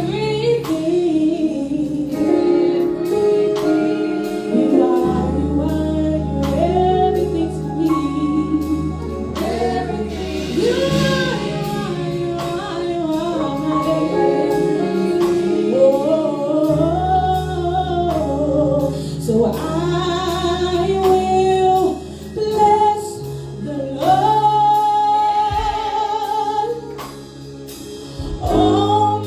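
Gospel singing with band accompaniment: sung voices over sustained bass notes and a steady beat.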